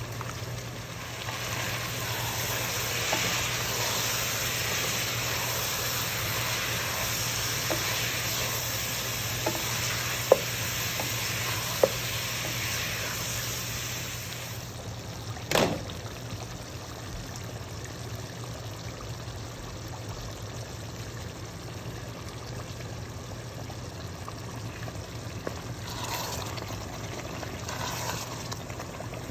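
Pork pieces and curry spices sizzling in a pot while a wooden spoon stirs them, with a few sharp clicks of the spoon against the pot. A louder knock comes about halfway through, and the sizzle is quieter after it. A steady low hum runs underneath.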